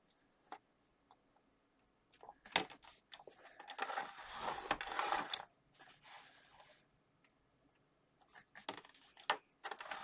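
A scoring tool drawn along the grooves of a scoreboard, scoring white card: two scraping strokes, the first longer, among light clicks and taps as the card and tool are handled.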